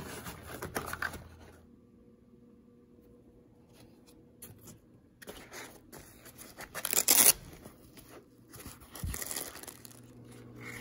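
Cardboard box and packaging being handled while a camcorder is unpacked: rustling and scraping in irregular bursts, loudest about seven seconds in, with a soft thump about nine seconds in.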